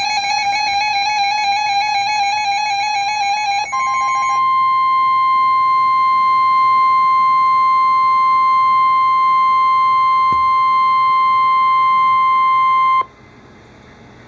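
Emergency Alert System attention signal. A warbling tone plays for about four seconds and is overtaken by a single steady high tone, which holds until about thirteen seconds in and then cuts off abruptly.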